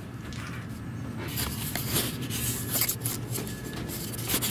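Handling noise from a handheld camera: cloth rubbing and rustling against the microphone, a jumble of scrapes and small knocks starting about a second in, over a low steady hum.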